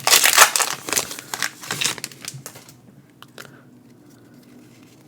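Foil Pokémon booster pack wrapper crinkling and tearing open, busy for the first two seconds or so, then dying away to a few faint ticks.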